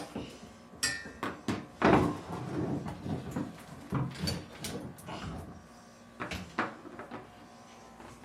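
Packaging and plastic parts being handled while zip ties are cut: a string of clicks, knocks and rustles, loudest about two seconds in.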